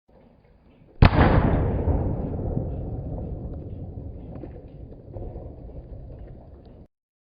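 Explosion sound effect: a faint low rumble, then about a second in a sharp blast that decays into a long rolling rumble with scattered crackles, cut off abruptly near the end.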